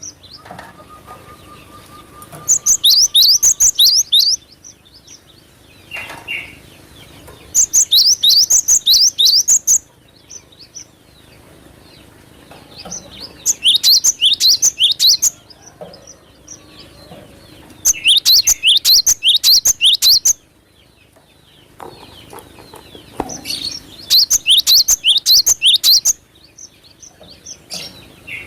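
Cinereous tit (glatik batu) singing in five bursts of about two seconds each. Each burst is a fast run of high sweeping notes, and a few seconds of pause fall between the bursts.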